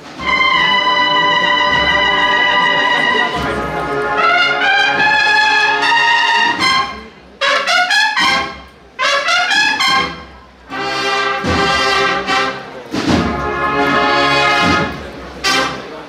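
Cornet-and-drum band (Spanish cornetas y tambores) playing a processional march: bright bugle-like cornets hold long notes in several parts, stopping briefly between phrases a few times, over drums.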